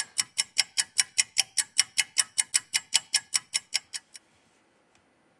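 Clock-ticking sound effect, fast and even at about five ticks a second, stopping just after four seconds in; it marks a three-minute wait for the adhesive remover to soak in.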